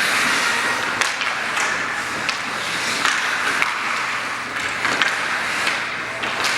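Ice hockey skates scraping and carving on the rink ice, with scattered sharp clicks of sticks and puck about once a second.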